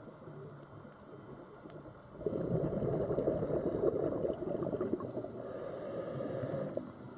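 Scuba regulator exhaust: a loud rush of bubbling and gurgling starts about two seconds in, lasts about four and a half seconds and stops fairly sharply, over a quieter underwater rustle.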